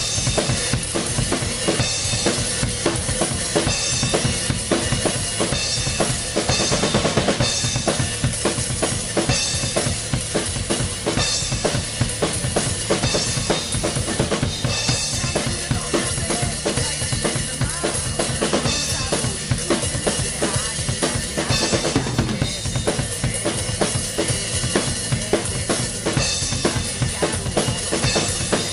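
Acoustic drum kit played hard and fast, with driving kick drum, snare hits and crashing Sabian cymbals, kicking in abruptly over a rock song's backing track.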